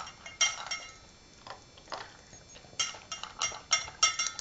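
Cavalier King Charles spaniel puppy eating dinner from a bowl: his mouth knocks the bowl and scatters the last bits of food, making quick ringing clinks. There is a burst of clinks at the start, a sparser stretch in the middle, and a dense run near the end.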